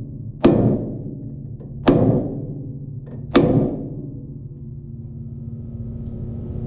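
Three sledgehammer blows on the old steel leaf-spring hanger of a Chevrolet C10 frame, about a second and a half apart. Each metal strike rings on after the hit. The blows are meant to knock off the hanger once its rivets have been shaved down.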